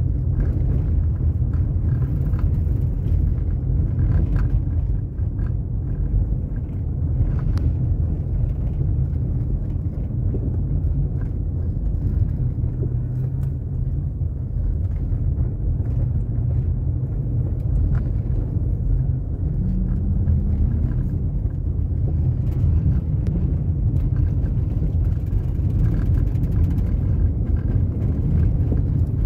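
Steady low rumble of a vehicle being driven: engine and road noise.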